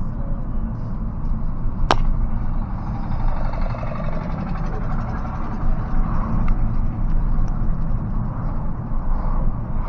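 Steady low road and engine rumble inside a moving car, with a single sharp click about two seconds in.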